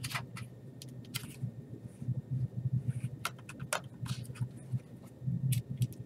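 Scattered clicks and taps as a 2.5-inch SSD in its bracket is slid and pressed into the drive bay of a Lenovo ThinkPad E450 laptop, over a low steady hum.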